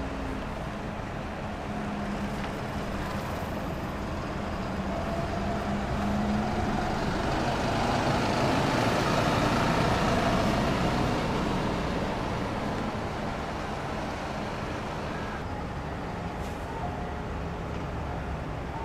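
City buses running and moving off, with street traffic behind. The noise swells as a bus comes close around the middle, then eases back.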